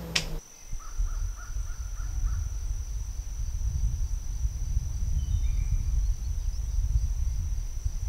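Outdoor ambience: a fluctuating low rumble of wind on the microphone, a steady high-pitched insect drone, and a few faint bird calls about one to two seconds in.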